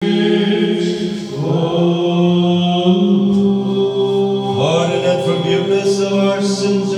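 Orthodox liturgical chant: men's voices singing long, steadily held notes in harmony, moving to new notes about a second and a half in and again near the five-second mark.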